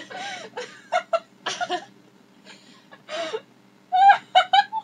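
Two young women laughing in short bursts, with a quick run of high-pitched laughs about four seconds in.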